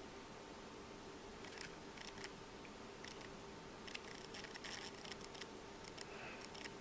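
Faint clicks and scrapes of a digital caliper's steel jaws being slid and closed on a plastic propeller blade, over a faint steady hum.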